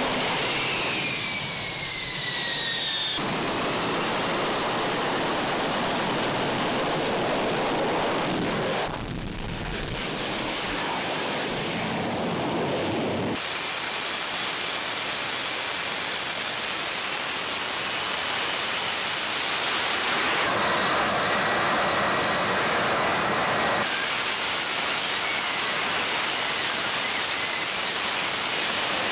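F-35B jet engine noise at high power, in STOVL mode with the lift fan running, a loud, steady rushing jet sound. It changes abruptly several times between separate clips. In the first few seconds a high whine falls in pitch as an engine winds down after landing.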